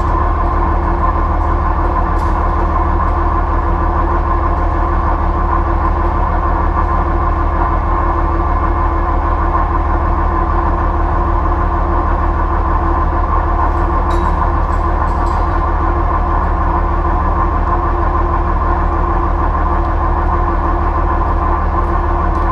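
John Deere 9500 combine harvester running steadily at working speed, with an even, unbroken mechanical drone and a deep hum underneath.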